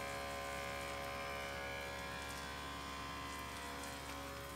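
Small electric pump of a Ryobi 18V ONE+ battery chemical sprayer running with a steady buzzing hum.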